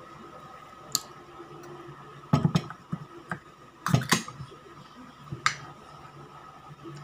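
Aluminium drink can being handled and its ring-pull tab worked open with the fingers: a series of sharp clicks and light knocks, the loudest few about four seconds in.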